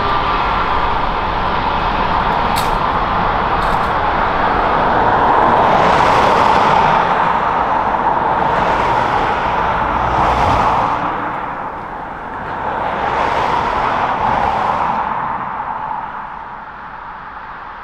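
Turbofan jet engines of a Swiss Airbus A320neo-family airliner taxiing past at low thrust: a steady whine with a rushing hiss that swells and fades several times. The sound falls away near the end.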